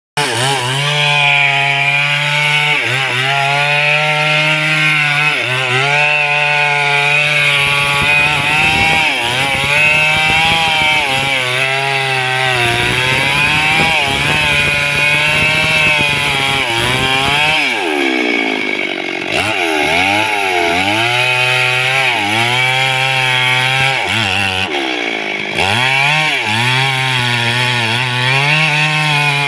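Large two-stroke chainsaw cutting through wood at high revs, its engine pitch repeatedly sagging and recovering as the chain bites. About two-thirds of the way through it bogs down deeply before climbing back to full speed.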